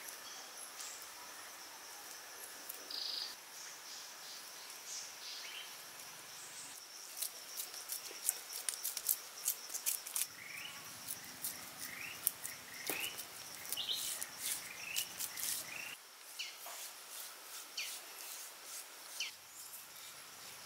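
Forest ambience: a steady insect drone with birds chirping. From about 7 to 16 seconds comes a quick run of short, sharp clicks and chirps.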